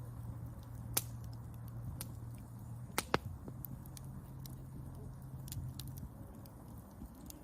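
Campfire wood crackling, with a loud pop about a second in and a quick pair of pops near three seconds, amid scattered small ticks over a low steady rumble.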